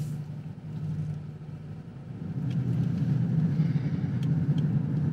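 A car running, heard from inside the cabin: a steady low drone of engine and road noise that grows louder about two seconds in.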